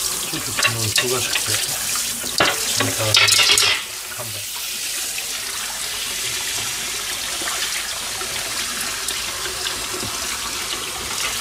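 Tap water running into a stainless steel sink while a metal grill pan is handled in it. The pan clatters and knocks several times in the first four seconds, loudest just after three seconds, and then the water runs steadily.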